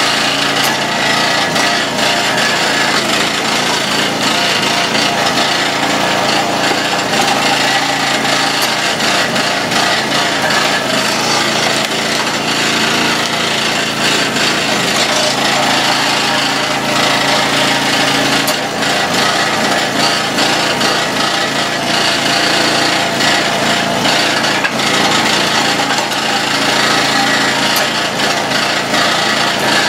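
Gas engine of a 25-ton hydraulic log splitter running steadily while it splits black locust firewood, with a few sharp knocks over the engine noise.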